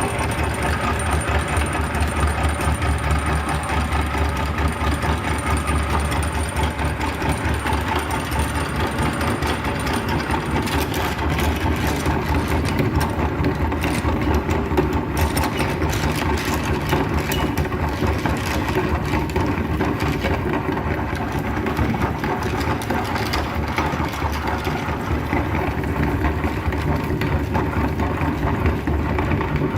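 Electric meat grinder running steadily, a low motor hum with a dense, rough grinding texture over it.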